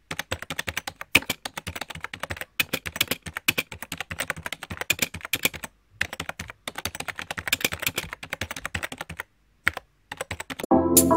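Computer-keyboard typing sound effect: quick runs of key clicks broken by short pauses. Music comes in near the end.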